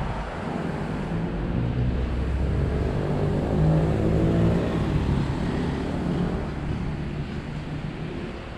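A motor vehicle passing close by: its engine hum builds, is loudest about four seconds in, then fades away.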